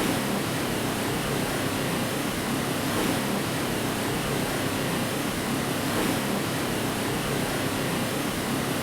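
Steady, unchanging white noise, an even hiss with a fuller low-middle rumble, played as a sleep aid for lulling a baby.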